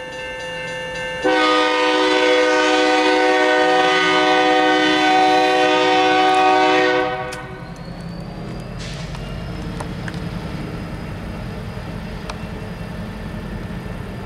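Diesel locomotive air horn sounding a long blast of several notes at once. It gets louder about a second in and cuts off about seven seconds in. After that comes the steady low rumble of the two BNSF locomotives' diesel engines as they approach.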